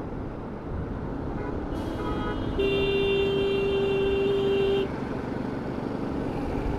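Motorcycle riding noise, a steady rush of wind and engine picked up by a mic inside the rider's helmet. A vehicle horn sounds for about two seconds in the middle, one steady tone.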